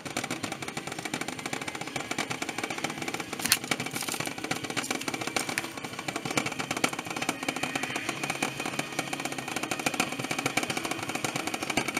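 Water simmering in a covered pot on the hob, a steady dense crackle of small popping bubbles, heating lime zest to make a hydrosol, with ice melting on top to condense the steam.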